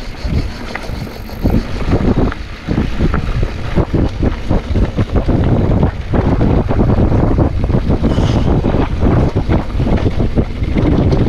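Wind buffeting the camera microphone, with a hardtail mountain bike's tyres and frame rattling over a dirt singletrack at speed: many quick knocks over a loud, steady rush.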